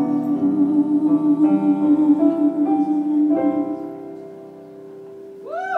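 Closing bars of a song. The accompaniment plays a few chord changes under a held note, then fades out. Near the end comes a short sound that rises and falls in pitch, like a voice call.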